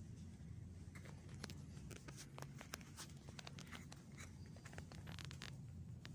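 Quiet indoor room tone: a low steady hum with scattered light clicks and rustles from about a second in until near the end.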